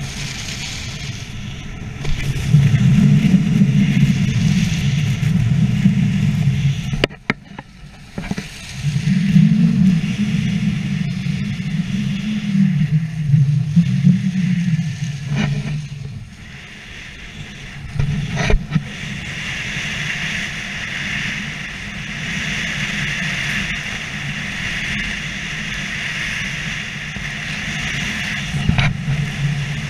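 Skis sliding and carving on packed snow with a steady scraping hiss, under heavy wind rumble on the action camera's microphone that swells and drops. A few sharp knocks come along the way.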